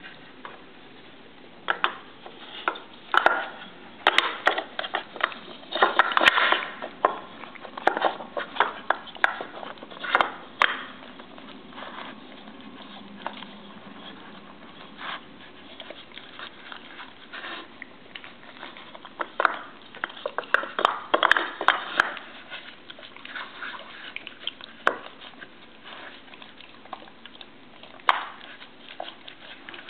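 Round wooden dowels knocking and clacking in a wooden puzzle box as a dog noses and paws at them to lift them off hidden treats, with the dog sniffing. The knocks come irregularly, in busy clusters early on and again about two-thirds through.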